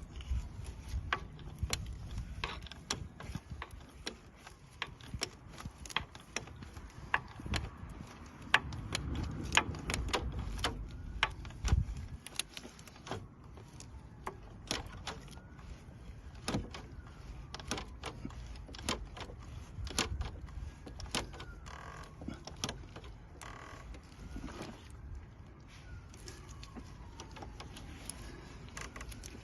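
Ratchet wrench with a 27 mm socket being worked, giving many irregular clicks and knocks, with a few faint squeaks in the middle.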